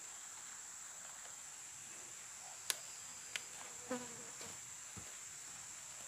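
Steady, high-pitched shrilling of insects, with a few sharp clicks in the middle.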